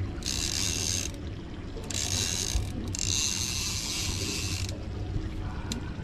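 Fishing reel winding line in three spurts with short pauses between them, a geared, ratcheting whir.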